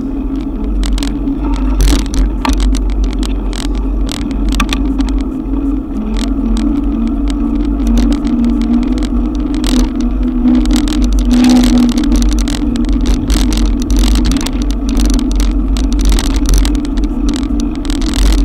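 Bicycle ride through a cloudburst, heard from a camera on the bike: a heavy low rumble of wind and road, a steady wavering hum, and frequent sharp taps and clicks.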